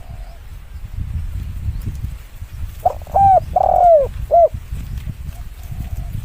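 Spotted dove cooing: one phrase of four notes about halfway through, two short coos, a longer drawn-out coo, then a short one, with fainter single coos near the start and end.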